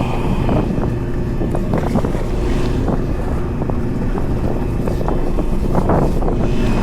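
Fishing boat's engine running steadily at sea, with wind buffeting the microphone and the sound of water around the hull.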